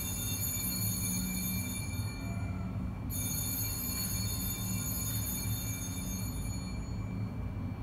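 Altar bells: a cluster of small bells rung in a quick shake. The ringing from a shake just before is still fading at the start, and a second shake comes about three seconds in, its high ringing dying away over about four seconds. A low steady hum runs underneath.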